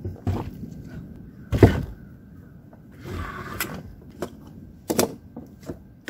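Cast-iron Zoeller M98 sump pumps being handled and set down on a wooden table: a series of knocks and thuds, the loudest about one and a half seconds in, with a brief scrape around three seconds.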